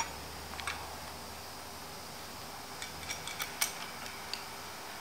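Light metallic clicks and taps as a diamond grinding wheel is fitted and screwed down onto an angle grinder that is switched off, with a small cluster of clicks about three seconds in.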